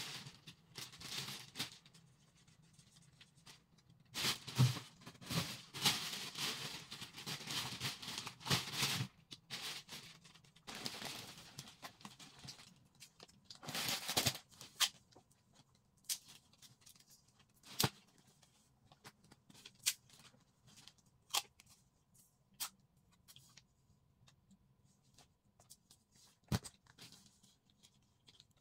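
Plastic bags and packaging rustling and crinkling in bursts through the first half, with a louder tearing burst about halfway, consistent with packing tape. After that, scattered light clicks and taps as a fingernail picks at the end of a roll of packing tape.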